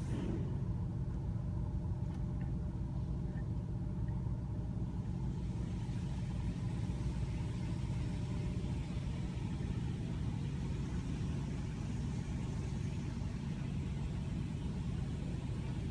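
Car engine idling with a steady low rumble, heard from inside the cabin. A faint hiss comes up about six seconds in.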